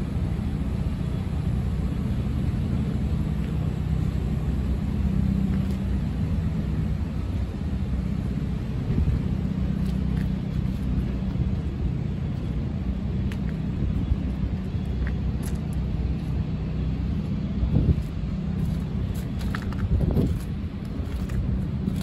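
Steady low rumble and hum of a running engine, with a couple of light knocks near the end.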